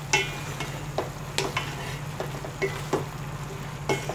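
Wooden spatula stirring sliced chayote and chicken in a metal pot, with irregular scrapes and knocks against the pot about twice a second over a faint sizzle. A steady low hum runs underneath.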